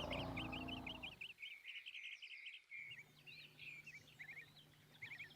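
Wild birds chirping in quick, repeated short calls, faint in the background. A low animal-like rumble fades out about a second in.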